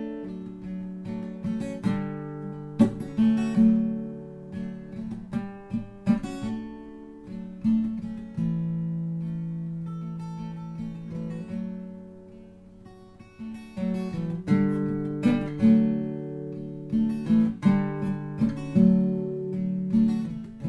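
Background music: an instrumental acoustic guitar passage of strummed chords that ring and fade, easing off to a softer held stretch in the middle before the strumming picks up again.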